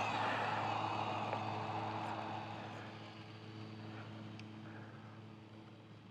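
Distant motorbike engines fading away over a few seconds, with a steady low hum underneath.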